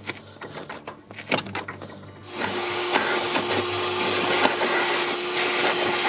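Vacuum cleaner switched on a little over two seconds in, running steadily with a constant hum as its hose nozzle vacuums the car's floor. A few light clicks and knocks of handling come before it.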